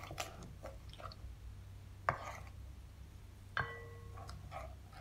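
Wooden spoon stirring a loose, watery rye-starter mixture in a ceramic bowl: soft wet stirring with scattered light taps. There is a sharp knock about two seconds in, and about three and a half seconds in another knock that rings briefly, like the spoon striking the bowl.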